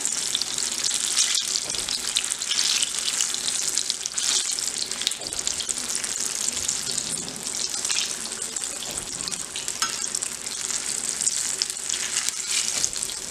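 Besan (gram-flour) pakoras deep-frying in hot oil in a kadhai: a steady sizzle with small crackles running through it.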